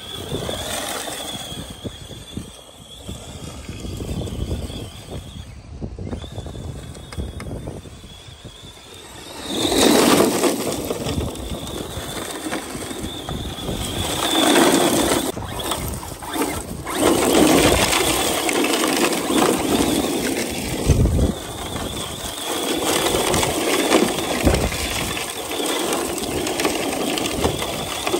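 Arrma Mojave 4S RC short-course truck's brushless electric motor whining, with its tyres spraying sand as it drifts, growing louder from about ten seconds in.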